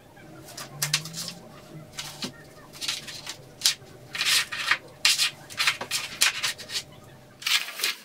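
Paper rustling in a run of quick, uneven bursts as an instruction manual and loose sheets are handled, opened and smoothed flat, with the loudest rustle near the end.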